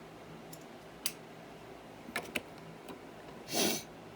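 LEGO plastic pieces being handled: a few light clicks, then near the end a short, louder rustling burst.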